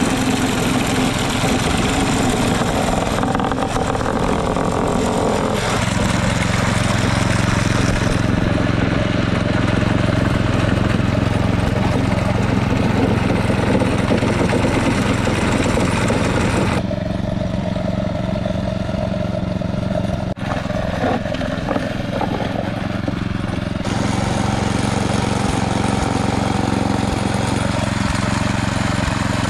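A 220 cc four-stroke lawnmower engine running steadily, its tone shifting suddenly a few times.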